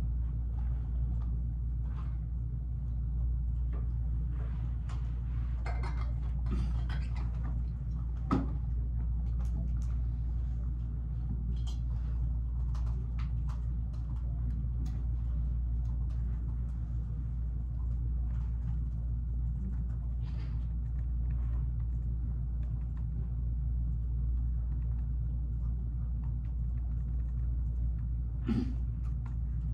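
Steady low rumble with scattered faint clicks and two light knocks, about eight seconds in and near the end.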